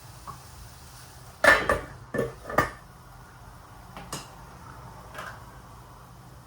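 Kitchenware clattering: a quick cluster of about four knocks and clinks about a second and a half in, then two lighter knocks a few seconds later.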